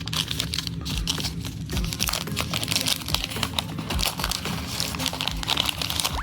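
Paper wrapper of a 1986 Grossville High trading-card pack crinkling and crackling as it is handled.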